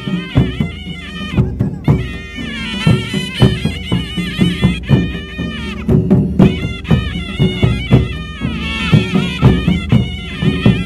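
Himachali traditional folk music: a reedy wind instrument plays a wavering, ornamented melody over frequent drum strokes.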